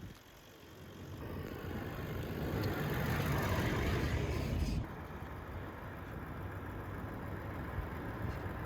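A vehicle driving on a road: the noise grows louder over the first few seconds, then drops abruptly about five seconds in to a steadier, lower drone.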